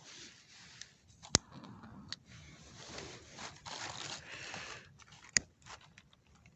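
Crumpled newspaper and dry sticks rustling and crunching as a campfire is being lit, with two sharp clicks, the loudest sounds, about a second and a half in and again four seconds later.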